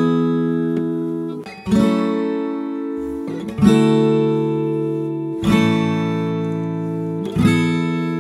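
Background music: an acoustic guitar strums a chord about every two seconds, each chord left to ring out and fade.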